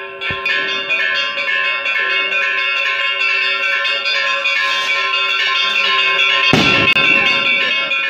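Church bells ringing fast and continuously, many strikes overlapping into a ringing wash. A sudden loud burst of noise breaks in about six and a half seconds in.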